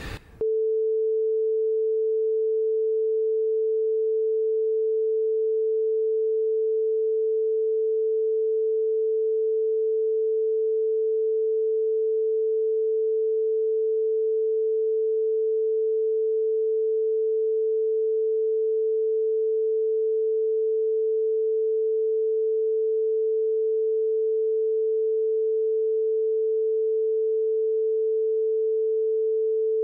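A single steady mid-pitched sine tone starts abruptly about half a second in and holds at one level and pitch. It is a censorship tone laid over a redacted stretch of the interview recording.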